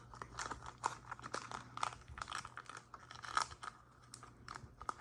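Foil Yu-Gi-Oh! booster pack wrapper crinkling and tearing in the hands, a run of short irregular crackles as a pack that is hard to open is worked open.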